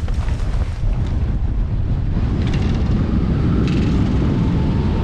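Strong wind rushing over the microphone of a hang glider launching into flight. It starts abruptly and stays loud and steady.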